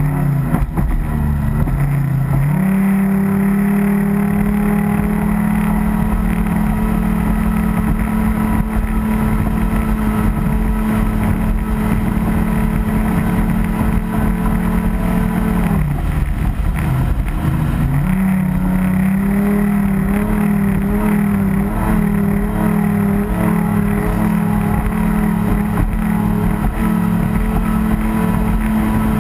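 A radio-controlled racing boat's motor running flat out, heard from on board, with the rush of water under the hull. About halfway through, the motor drops in pitch for a couple of seconds, then climbs back to full speed.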